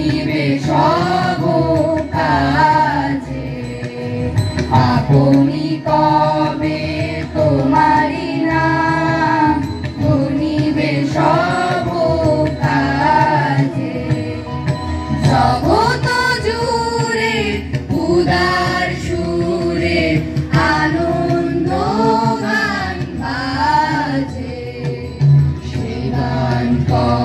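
A group of school students singing a song together into microphones, their voices carried over a loudspeaker.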